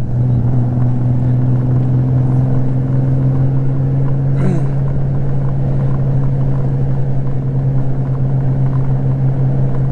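Honda Goldwing GL1500's flat-six engine running at steady highway cruising speed, an even low drone over road and wind noise.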